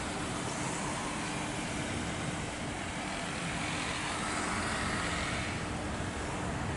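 Jet airliner engines running, a steady rush of engine noise with a low steady hum underneath, swelling slightly partway through.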